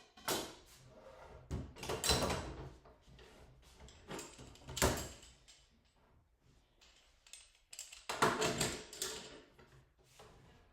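A few scattered knocks and scraping handling sounds, with the loudest around two seconds in, about five seconds in, and near eight to nine seconds in.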